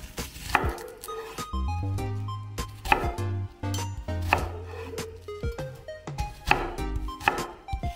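A kitchen knife chopping a peeled onion on a wooden cutting board: sharp knife strikes against the board, roughly one a second.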